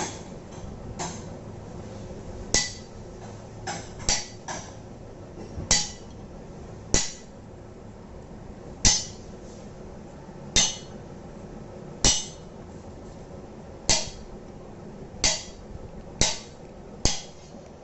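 A hammer striking metal: a dozen or so sharp blows at uneven intervals of one to two seconds, each with a short metallic ring.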